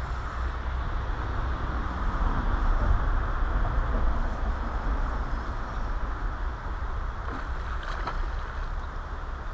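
Wind rumbling on the microphone over a steady rushing noise, with a short sharper noise about eight seconds in.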